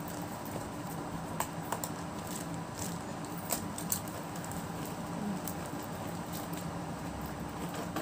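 Makeup items clicking and knocking together as a hand rummages through a clear plastic zippered pouch, with plastic rustling and scattered light clinks over a steady low hum.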